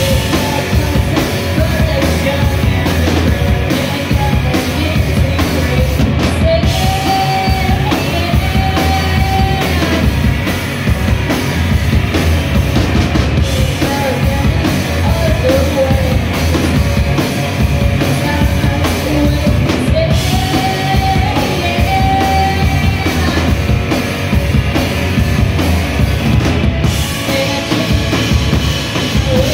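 Live rock band playing loud and without pause: electric guitars and a drum kit played together in a small room.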